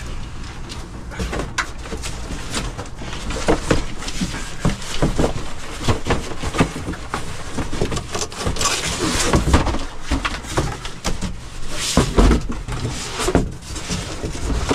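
Cardboard boxes being handled: an inner box lifted and slid out of a larger shipping box, with cardboard scraping, flaps rustling and irregular knocks. A longer stretch of scraping comes about two-thirds of the way through, over a steady low rumble.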